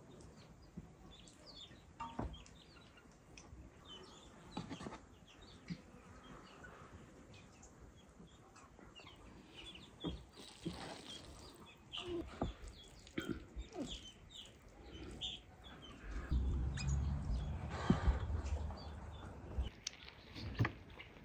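A metal slotted spoon scoops cooked rice in a large aluminium pot, giving scattered clinks and scrapes against the pot. Birds chirp and a chicken clucks in the background. Near the end there are a few seconds of low rumbling with one loud knock.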